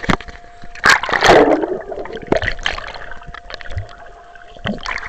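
Lake water splashing and gurgling around a small waterproof camera as it is swept under and through the water, with irregular knocks and rushes of noise, the loudest about a second in.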